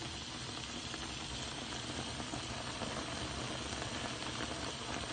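Pot of crabs with onion, ginger and chili boiling on an electric stove, a steady bubbling with no break; the crabs are still cooking, not yet done.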